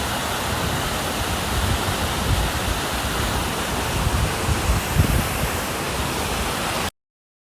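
Swollen river in flood rushing past, a loud steady roar of water with uneven low buffeting on the microphone. It stops abruptly about seven seconds in.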